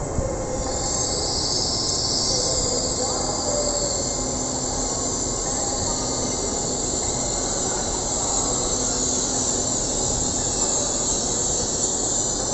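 LNER Azuma passenger train running past the platform: a steady rolling noise with a high hiss over it.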